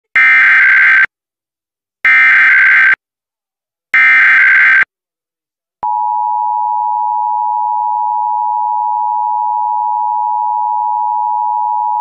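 Emergency Alert System tones for a Required Monthly Test: three one-second bursts of SAME header data, then about six seconds in the steady two-tone EAS attention signal starts and holds.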